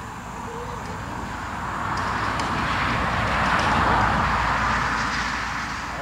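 A vehicle passing on a nearby road: a rush of tyre and engine noise that swells to a peak about four seconds in, then fades.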